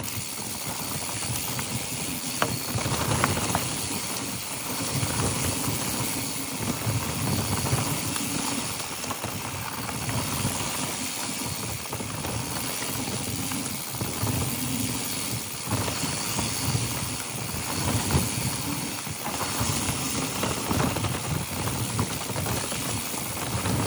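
Mountain bike riding fast on a dry dirt trail: a steady rush of wind on the microphone over the rumble of knobby tyres on dirt and leaves, with the bike rattling and clicking over bumps.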